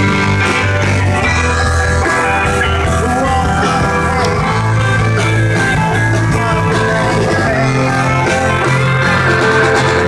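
A rock band playing, with electric guitar over held bass notes.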